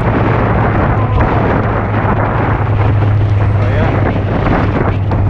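Heavy wind buffeting on the microphone of a Suzuki GSX650F motorcycle at riding speed, with the bike's engine as a steady low hum underneath.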